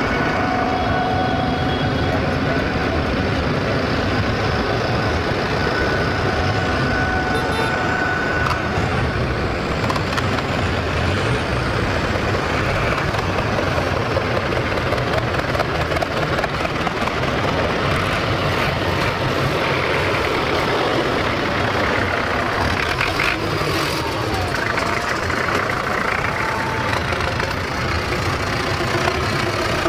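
Diesel engines of several farm tractors running at a slow, steady pace as a line of tractors drives past, a dense, continuous engine sound with no pauses.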